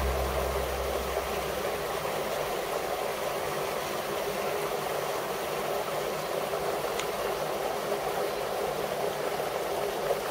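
Steady rushing hiss of outdoor background noise, with a low hum for the first second or two.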